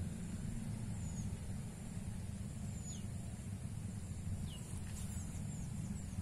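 Small bird calling with short, high chirps that slide downward, repeated every second or so and bunching up about five seconds in, over a steady low rumble.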